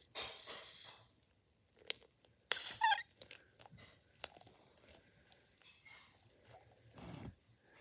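Hands squeezing and kneading a broken Stardust NeeDoh glitter-gel squishy toy: irregular sticky squelches and crackles, with two louder wet bursts about half a second and two and a half seconds in, the second ending in a short squeak.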